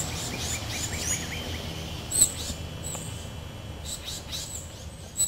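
Wild songbirds chirping and calling in backyard woods: a quick run of repeated notes in the first second, then scattered sharp, high downward-sweeping chirps, the loudest a little over two seconds in, over a low steady rumble.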